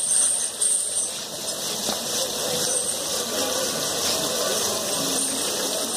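Water spraying down and splashing onto a bathing elephant's hide, a steady hiss with scattered splashes.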